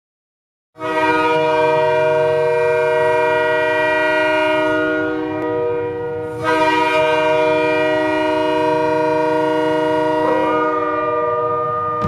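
Sudbury Wolves' ice hockey goal horn: a loud multi-tone air horn chord sounded in two long blasts, the first starting just under a second in and the second about six seconds in.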